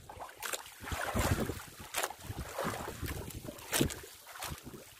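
Choppy sea water splashing and slapping against a small wooden outrigger boat and its bamboo outriggers in irregular surges, with several sharp slaps, and wind buffeting the microphone.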